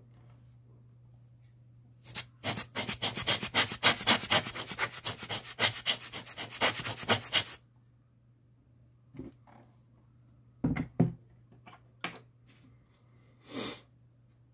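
Rapid back-and-forth rubbing strokes, about five a second, going on for some five seconds, then stopping; a few light knocks and clicks follow.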